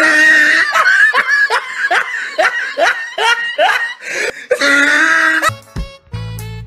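Laughter over background music: a run of short rising 'ha' strokes, about two a second. Near the end it gives way to different music with a low hum.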